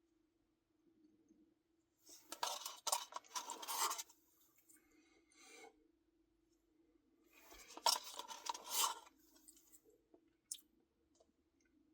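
Eating sounds from a Reese's cookie dough Blizzard: two bursts of scraping and chewing a few seconds apart, over a faint steady hum.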